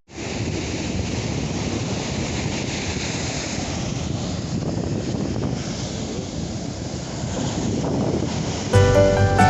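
Sea surf washing steadily on a beach, with wind buffeting the microphone. Music begins near the end.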